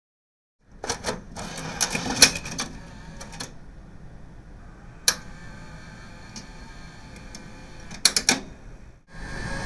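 A moment of silence, then clusters of sharp mechanical clicks and clunks, like machine switches or keys, over a faint steady hum. A lone click comes about halfway and another quick cluster near the end.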